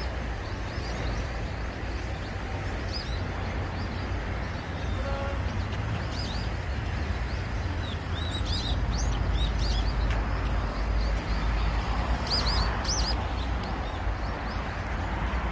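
Small birds chirping, short quick high notes every few seconds, over a steady low outdoor rumble and hiss.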